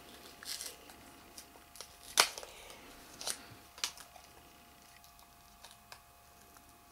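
Packaging of a small Shopkins toy box crinkling and rustling as it is picked at and pulled open by hand, in a few short crinkles and clicks. The loudest is about two seconds in, and the sounds thin out after about four seconds.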